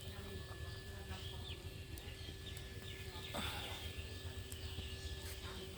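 Faint short chirps, like small birds, over a steady low hum, with a brief rustle about three and a half seconds in.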